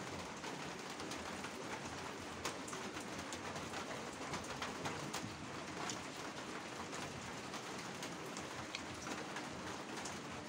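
Steady rain-like hiss, most likely rain falling, with scattered faint clicks through it.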